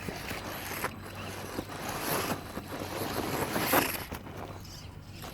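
A radio-controlled scale rock crawler scrabbling up a steep climb: a rough scraping noise that swells twice, about two seconds in and again, louder, nearly four seconds in, after a sharp click at the start.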